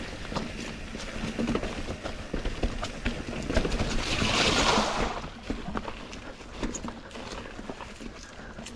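Titanium mountain bike rolling over a rocky, leaf-covered trail, with repeated knocks and rattles from the tyres on rock. About four seconds in, the tyres splash through a shallow puddle for about a second, the loudest sound.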